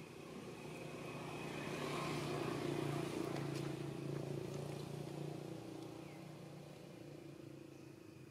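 A motor vehicle passing by: a low engine hum swells to its loudest about three seconds in, then slowly fades away.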